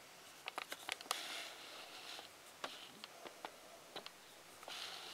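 Faint scattered clicks and light taps, with two short bursts of rustling, one about a second in and one near the end.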